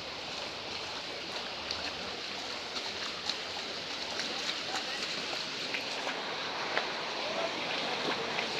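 Flood water rushing, a steady, even wash of noise that grows slightly louder.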